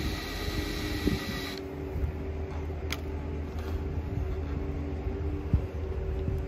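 Cordless drill running steadily under load, boring through a fiberglass boat deck, with a sharp knock about five and a half seconds in.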